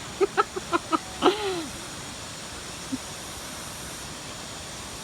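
A person's voice: a quick run of short voiced sounds, then one longer falling 'ahh', over a steady hiss of rushing water from a waterfall.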